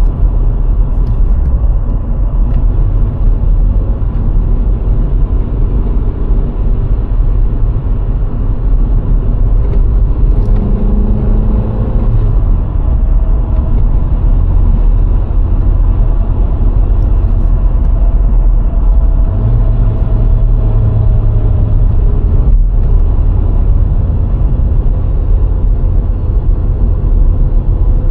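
VW Golf IV 1.6 driving on the open road: a steady rumble of tyres, wind and engine, with the engine's hum shifting in pitch a few times.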